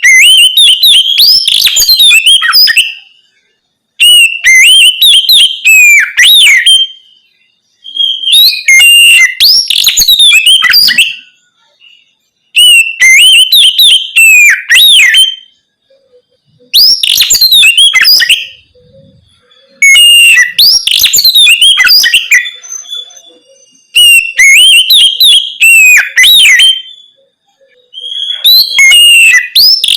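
Oriental magpie-robin (kacer) singing its loud, open 'ngeplong' song in phrases of about three seconds, each a rapid run of whistled notes sweeping up and down. The phrases repeat roughly every four seconds, with short silent gaps between them.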